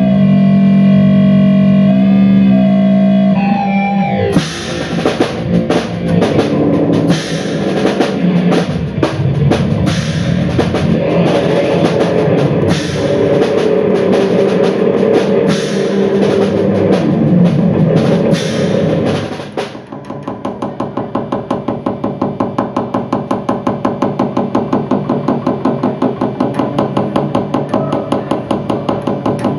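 Live improvised band music. Sustained droning tones that shift pitch in steps open it. About four seconds in, a drum kit enters with dense, busy hits under the drone. Around twenty seconds in the drumming drops out, and a fast, even pulse of about three beats a second takes over.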